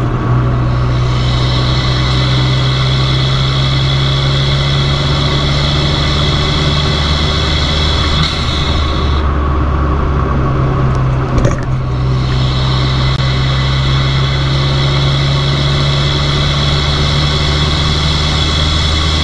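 Fiat 500 Abarth's turbocharged 1.4 four-cylinder running through an MPx cat-back exhaust at steady revs, a constant low drone, with a brief break in the sound about eleven and a half seconds in.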